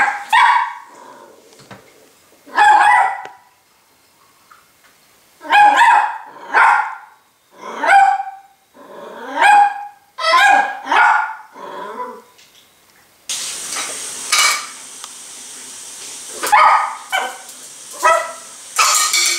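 Miniature pinscher puppy barking in short, sharp barks, a dozen or so, singly and in quick pairs with pauses between: fearful barking at a spoon sitting in its food bowl.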